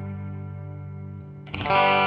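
Background music with guitar: a held chord slowly fading, then a new, louder chord struck about one and a half seconds in.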